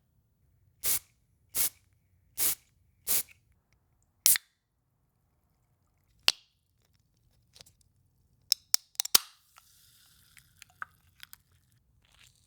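Spray bottle squirted five times in quick, short bursts, recorded close up as raw material for a web-shooter sound effect. Later a sharp click, then a quick run of clicks and a quieter hiss with small crackles.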